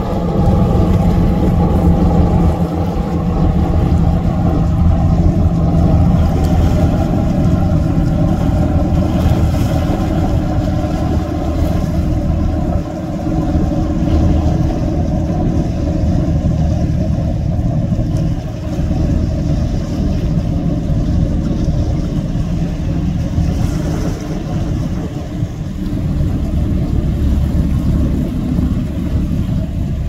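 Engine drone of a large container ship under way: a steady low rumble with a humming pitch, its higher hum slowly weakening.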